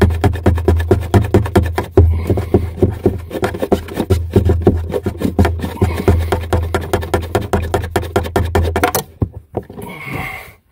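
Plastic faucet retaining nut being spun off its threaded shank by hand, a fast, even scraping rattle of several clicks a second that stops about nine seconds in as the nut comes free.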